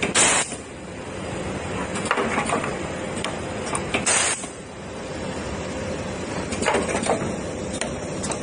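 Automatic soldering machine running through its cycle: a steady mechanical noise, with a short, loud hiss about every four seconds and lighter clicks of moving parts in between.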